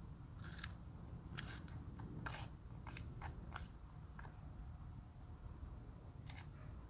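Leopard tortoise biting and crunching its food with its beak: irregular crisp snips, about eight in the first four seconds, then a pause and one more near the end, over a low steady hum.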